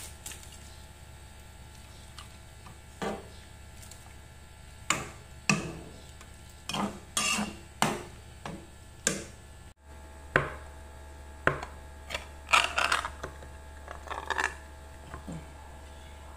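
A kitchen utensil knocks and scrapes against a pan as wet noodles are stirred in boiling water, over a steady low hum. After a sudden break, a tin can of sardines clatters and knocks as it is handled on a table.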